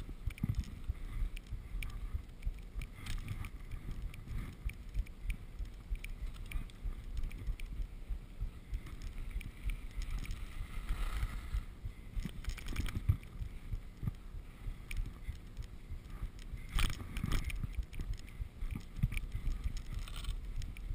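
Skis sliding and scraping over snow through the trees, an irregular hiss with small knocks, and low wind rumble on the camera microphone. Two louder scraping rushes come partway through, as in hard turns.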